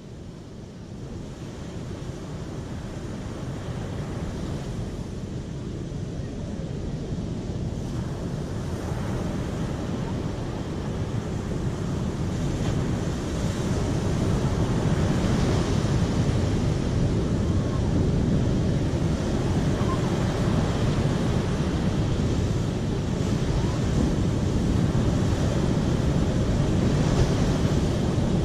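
Steady rushing of flowing water, a dense even wash with most of its weight low. It grows louder over the first half, then holds steady.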